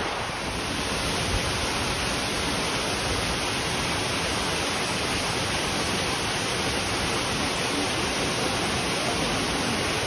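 Waterfall cascading down in tiers, a steady, even rush of falling water.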